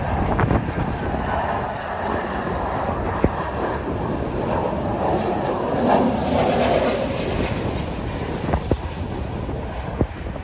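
Jet engines of a Boeing 737-800 on final approach, a broad rushing noise that swells to its loudest about six seconds in, with wind buffeting the microphone and a few sharp clicks.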